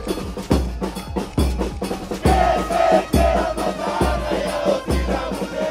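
Music with a steady drum beat: a heavy kick drum a little under once a second, sharp percussion hits and a held melody over it.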